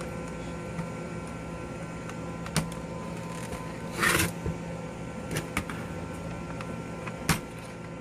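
Scattered clicks and knocks, with a brief rustle about four seconds in and the sharpest click near the end, over a steady hum: plastic laptop parts being handled during disassembly.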